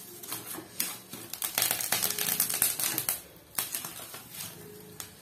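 Scorched, crisp banana-leaf parcels crackling and rustling as they are lifted and flipped over on a hot iron griddle. The crackling comes in bunches and is densest about one and a half to three seconds in.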